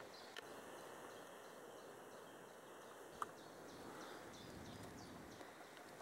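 Near silence: faint woodland ambience with two light clicks, one about half a second in and one about three seconds in, and faint short high chirps in the second half.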